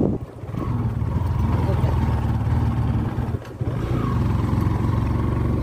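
Motorcycle engine running steadily as the bike rides along a dirt road, with a brief dip in level about halfway through.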